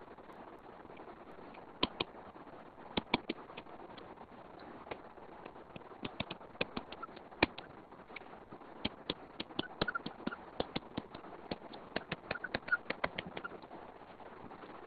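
Stylus tips tapping and clicking on a tablet's glass screen during handwriting: irregular sharp clicks, often in quick clusters, over a faint steady hiss.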